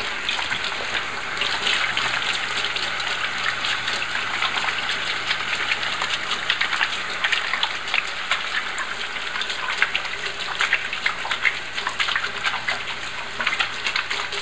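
Kitchen faucet running steadily into a stainless-steel sink while hands are rubbed and rinsed under the stream, with frequent small irregular splashes.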